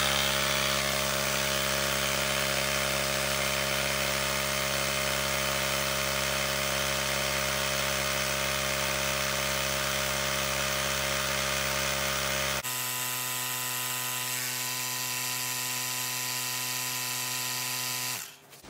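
Hart battery-powered handheld inflator, a small air compressor, running steadily while it pumps air through its hose into an inflatable pool. About two-thirds of the way through, its tone changes abruptly to a thinner hum, and it stops near the end.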